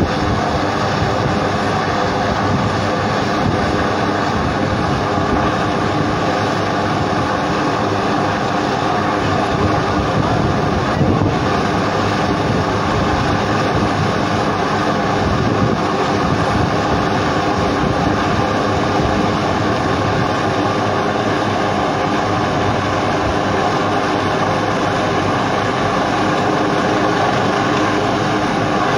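Military helicopter hovering close by, its turbine engines and rotor making a loud, steady drone.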